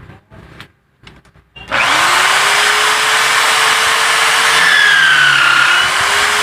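Electric drill in a drill stand starting up a little under two seconds in and then running steadily, its motor whine wavering slightly in pitch.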